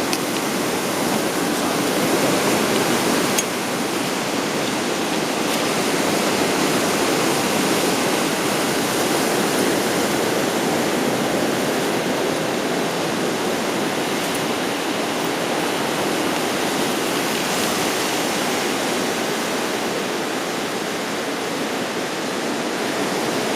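Steady rush of ocean surf washing along a rocky shoreline.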